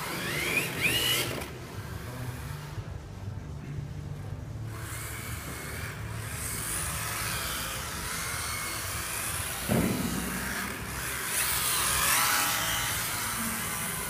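Electric motors of MST FXX-D 1/10 RC drift cars whining up and down in pitch as the throttle is blipped through drifts, over a steady hiss. A sharp knock comes about ten seconds in.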